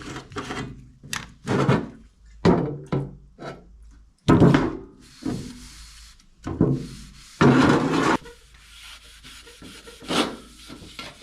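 Irregular scraping and rubbing strokes from cleanup in a metal shop: a string of short strokes, with one longer stroke about three quarters of the way through.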